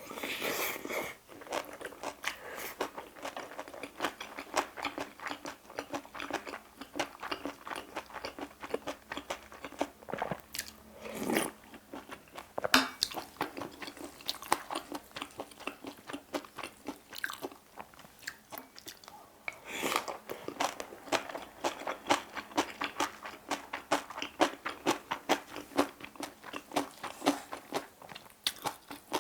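Close-miked chewing of a mouthful of bibimbap, a steady run of wet crunching and biting from its raw vegetables, with a few louder sharp clicks now and then.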